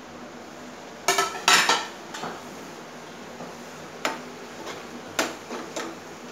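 Steel plate and spoon clanking against a nonstick frying pan as pre-fried okra is tipped into the masala: two loud ringing clanks about a second in. After that the steel spoon stirs, knocking lightly against the pan a few more times.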